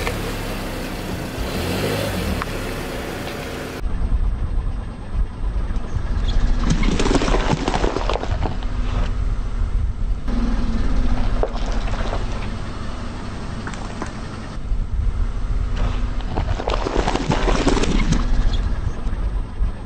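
Car tyre rolling slowly over whole bell peppers on asphalt and crushing them, with crunching and cracking that swells several times over the car's steady low rumble.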